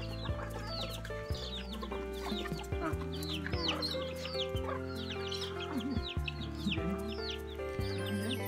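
Background music with long held notes, mixed with chickens clucking in short, repeated falling calls.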